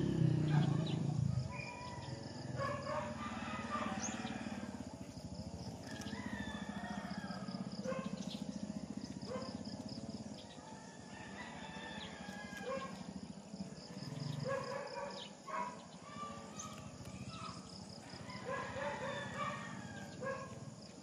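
Roosters crowing again and again, with hens clucking, across the whole stretch; a louder low sound opens it in the first second or so.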